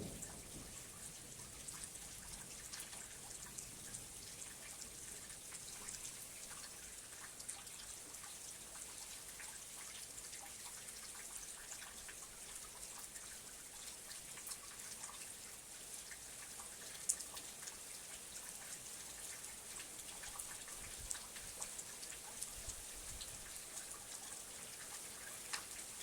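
Steady rain, with many individual drops ticking on a surface and a few sharper drop hits, one about 17 seconds in. Faint and even, with no thunder.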